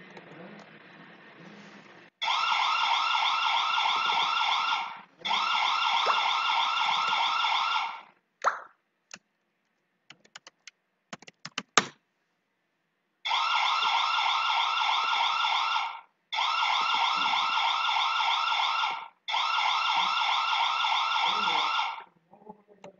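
Hikvision DS-2CD2421G0-I cube camera's built-in alarm siren going off, its PIR motion alarm triggered: a loud warbling siren in five bursts of about three seconds each. A pause with a few short clicks falls between the second and third bursts.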